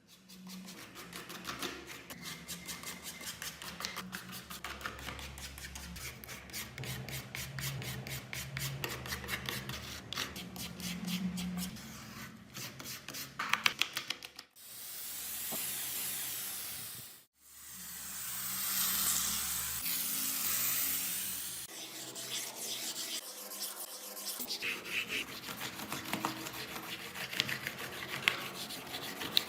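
Rapid rubbing and scrubbing strokes on a rusty old keyboard's parts during cleaning, with a couple of sharper clicks about halfway. Then come two long hissing swells, a few seconds each, followed by more uneven rubbing and light clicks.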